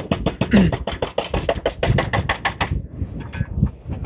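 Excavator-mounted breaker (pneumatic hammer attachment) hammering concrete in rapid, even blows, about seven a second. It stops about two and a half seconds in.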